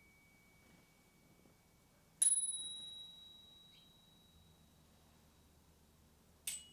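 Bicycle bells being rung one at a time. The ringing of the previous bell dies away, then a bell is struck once about two seconds in and rings on with a high, clear tone for about three seconds. Near the end another bell gives a single short ding.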